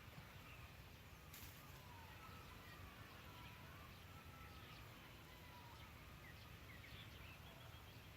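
Faint outdoor ambience: distant birds calling in wavering whistles and short chirps over a low, steady rumble, with one brief click about a second in.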